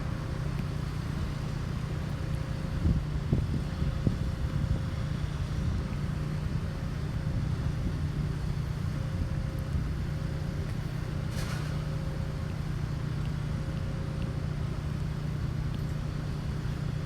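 Steady low rumble of vehicle engines in the city, with a few soft thumps about three to four seconds in and a brief hiss near the middle.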